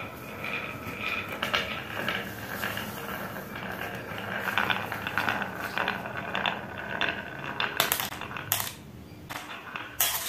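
Marbles rolling down a wooden serpentine marble-run track with a continuous rattling roll. Near the end a few sharp clicks follow as they drop into a plastic toy loader's bucket and knock together.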